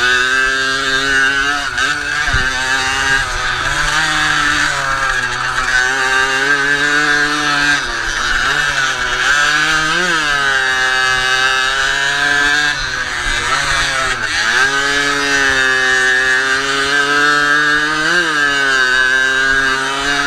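Jawa Pionier's 50 cc two-stroke single-cylinder engine at racing revs, heard from on the moped, its pitch rising and falling with the throttle. The revs dip sharply about halfway through and again a few seconds later, then climb back.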